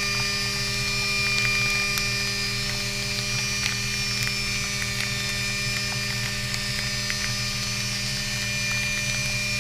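CNC vertical mill machining aluminium boxway bars under flood coolant: a steady spindle hum and whine with several fixed tones, over the hiss of coolant spray, with scattered light ticks.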